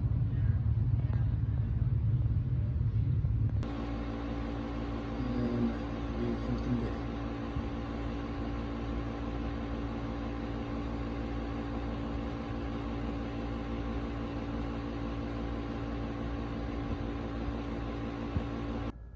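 Air conditioning equipment running. For the first few seconds there is a loud low rumble, then it changes abruptly to a steady hum with several even tones, typical of a compressor and fan running.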